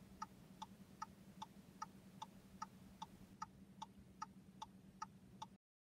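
Car's turn indicator ticking faintly and evenly, about two and a half ticks a second, over a low steady hum inside the cabin. It cuts off suddenly just before the end.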